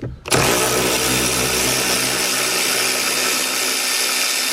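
Cordless Milwaukee power tool with a 14mm socket, running steadily as it spins out a seat belt anchor bolt. It starts just after the opening moment.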